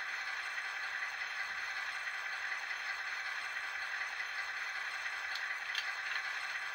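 Sound decoder of a Fleischmann N-gauge DR class 112 (V100) model diesel locomotive playing its diesel engine idling sound through the model's tiny speaker: steady and thin, with no bass. Two faint short clicks come about five and a half seconds in.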